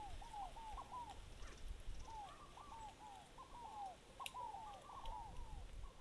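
Faint, repeated short chirping calls from a small animal, each rising and then falling in pitch, coming several a second in quick runs with short gaps between.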